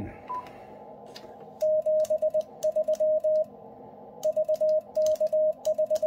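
Icom IC-705's CW keyer sending a stored memory message in Morse code, heard as its sidetone: one steady mid-pitched tone keyed in dots and dashes, starting about a second and a half in and pausing briefly between groups. Just before it, a short higher beep from the memory key press.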